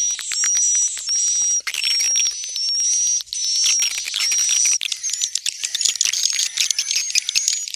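Swiftlet lure call: high, thin whistled notes about twice a second, mixed with chirps and twittering. After about five seconds it turns into a denser stream of rapid clicking chirps.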